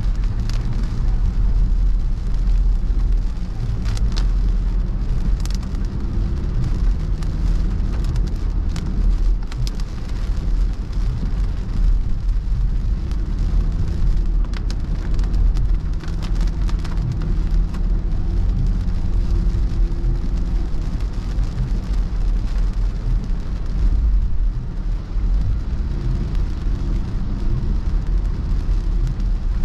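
Inside a car's cabin while driving on a wet road in rain: a steady low road rumble and tyre hiss, with rain spattering on the windscreen in scattered sharp ticks.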